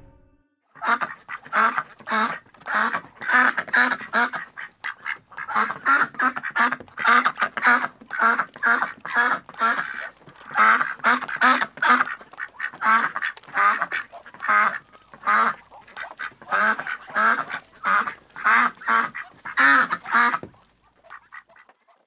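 Ducks quacking in a steady stream of short quacks, two or three a second, which stops near the end.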